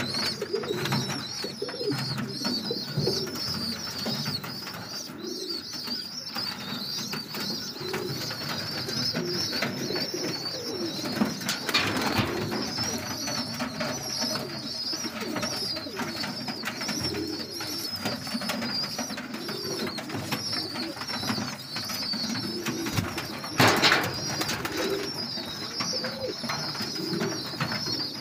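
Domestic pigeons cooing in a loft's nest boxes, many low coos overlapping throughout, with a steady high-pitched chirring underneath. A brief loud rustle comes about 12 seconds in and again, louder, near the end.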